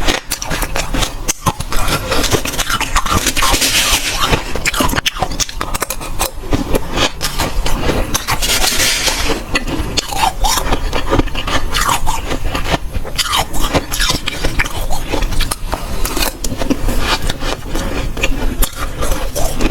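Close-up eating of dry, powdery freezer frost: continuous irregular crunching and scraping as the frost is bitten and chewed, louder for a moment about three and eight seconds in.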